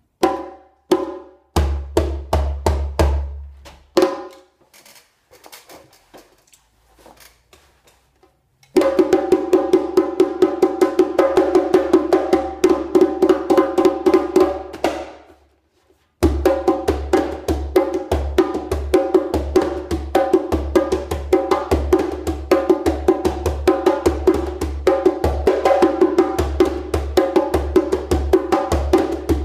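Hand drum with a skin head played with bare hands: a few separate strokes at first, then about nine seconds in a fast, steady rhythm of strokes that breaks off for a moment in the middle and starts up again.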